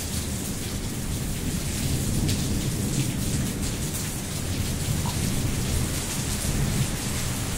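Heavy rain falling steadily, a continuous hiss with a deep low rumble underneath that swells slightly in the middle.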